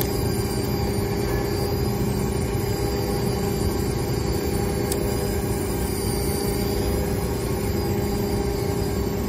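Small wheeled mobile robot's electric drive motors running steadily while it tows a loaded cart: a constant whine over a low rumble.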